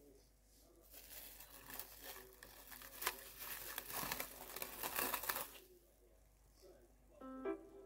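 Plastic cling film being peeled off a bowl and crumpled, crackling and crinkling for about five seconds before it goes quiet. A piano comes in near the end.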